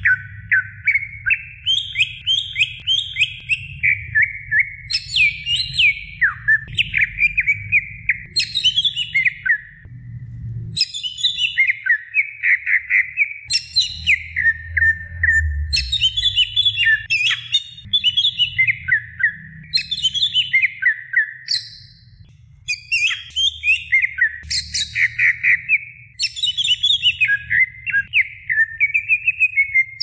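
Green leafbird (cucak ijo) singing a fast, continuous song of quick falling whistled phrases mixed with higher chattering notes, with a few brief pauses, over a low background rumble.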